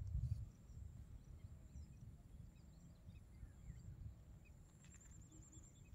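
Faint outdoor ambience: a low rumble of wind on the microphone, a few faint bird chirps and a thin, steady high insect whine, with a short high trill near the end.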